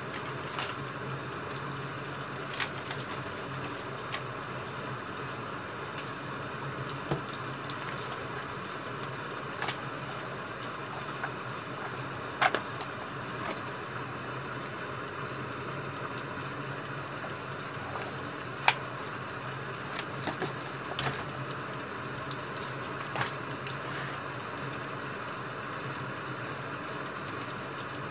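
Crackling wood fire: a steady hiss with sharp pops and snaps at irregular moments, the loudest about two-thirds of the way through.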